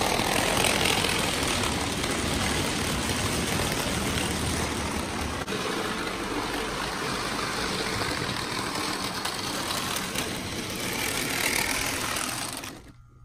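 Hornby OO-scale Murdoch model locomotive running on the track, pulling tank wagons: a steady whirring rumble of its electric motor and wheels on the rails, which cuts off suddenly near the end.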